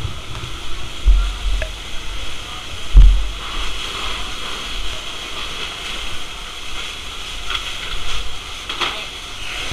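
Fire hose spraying a steady, rushing jet of water. Two heavy low thumps come about a second and three seconds in.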